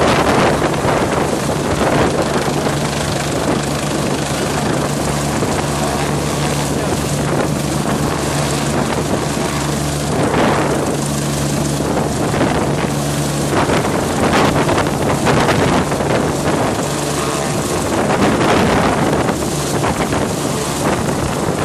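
Police rescue helicopter hovering low overhead: a steady engine and rotor hum under a loud wash of noise as the rotor downwash whips the lake surface, with wind buffeting the microphone.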